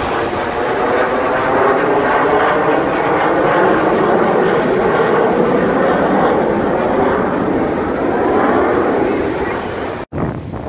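Jet noise from a formation of military jets flying a smoke-trailing display pass, a loud steady rushing sound. It cuts off suddenly near the end, giving way to surf and wind.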